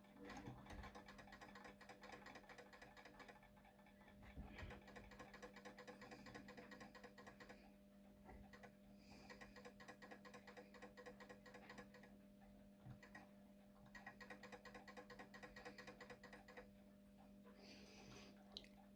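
Faint, rapid ticking of a Napoleon mantle clock's escapement running without its pendulum while its beat is being set; the ticking breaks off briefly a few times. A steady low hum lies underneath.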